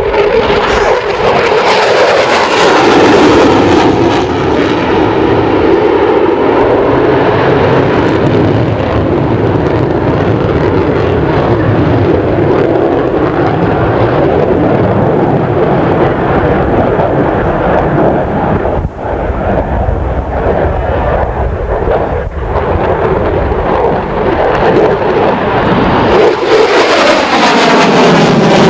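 Jet noise from an F-14B Tomcat's twin General Electric F110 turbofans, loud and continuous, with a sweeping, phasing tone as the jet passes near the start and again near the end.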